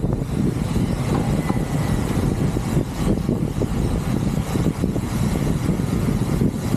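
Steady low rumble of wind buffeting the microphone and road noise during a ride.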